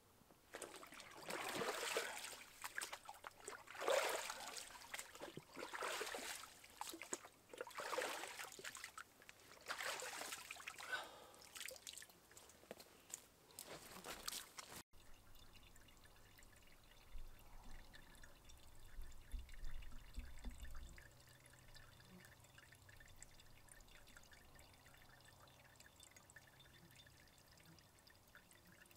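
Stream water splashing and pouring as a pot is dipped in a shallow stream to fill it, in surges about every two seconds. About halfway through it stops short and only a much fainter, steady background remains.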